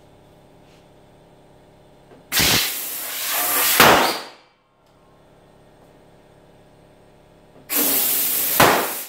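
Compressed air hissing from an air compressor's blow nozzle into a balloon, in two blasts of about two seconds and a second and a half, each growing louder toward its end.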